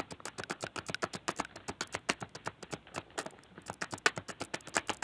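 Tarot cards being shuffled and handled: a rapid, irregular run of light clicks and taps.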